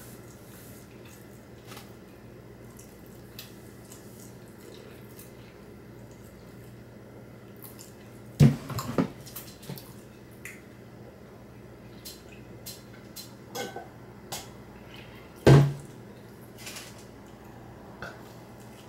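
Tabletop handling sounds of a meal: scattered light clicks and taps, with two louder knocks, one about eight and a half seconds in and one about fifteen and a half seconds in.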